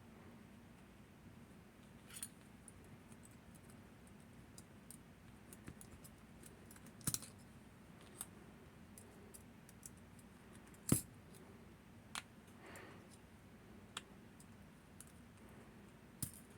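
Small metal parts of a Northern Telecom NE-22 lever lock clicking and tapping as they are handled during disassembly: a scattering of light ticks, with a few sharper clicks, the loudest about seven and eleven seconds in.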